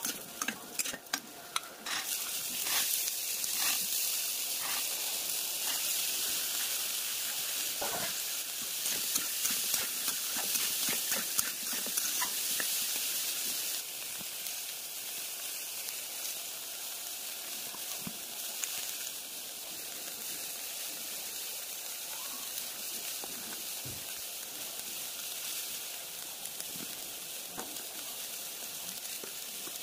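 Onions and chickpeas frying in oil in a non-stick kadai: a steady sizzle with the scrape and tap of a spatula stirring. The sizzle comes in about two seconds in and eases slightly about halfway through.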